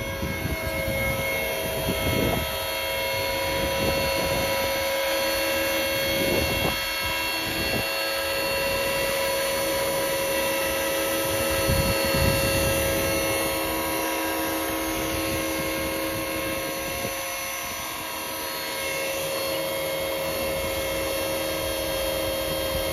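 Electric RC helicopter (A109 scale body on T-Rex 450 mechanics) running on the ground with its main rotor turning: a steady high whine from the brushless motor and gear train with the rush of the blades. Irregular low buffeting gusts come and go underneath.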